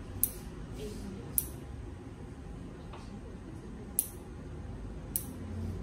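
Toenail clippers snipping toenails: four sharp clicks, the second and third about two and a half seconds apart.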